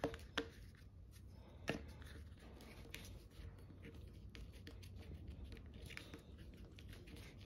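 Faint handling sounds of a sculptor starting to work regular Sculpey polymer clay with his tools: three sharp taps in the first two seconds, then soft scattered ticks and rustling.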